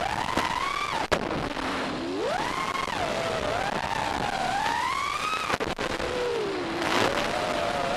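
Small electric motors of an FPV drone whining, their pitch sweeping up and down with throttle over a steady hiss, with a sharp click twice.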